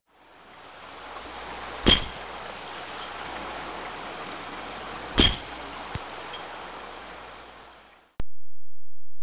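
A bell struck twice, about three seconds apart, each strike sharp and ringing, over a steady hiss that cuts off near the end.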